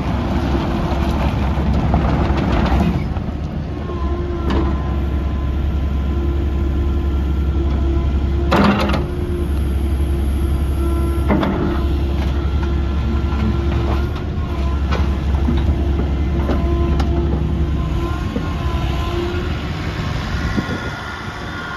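Volvo ECR88D compact excavator's diesel engine running steadily, with a steady whine over it and a few sharp clanks, the loudest about nine seconds in.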